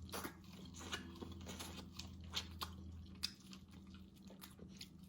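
A person chewing and biting into seafood-boil food close to the microphone: faint wet crunches and small clicks scattered through, over a low steady hum.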